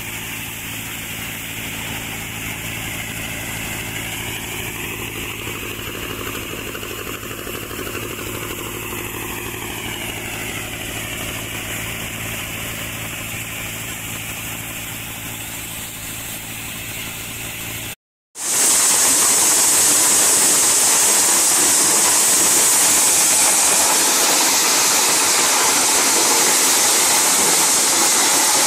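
Multi-crop threshing machine running: a steady engine hum under the rush of the threshing drum and grain. About 18 seconds in, the sound drops out for a moment and returns louder as an even, high-pitched rush with the hum gone.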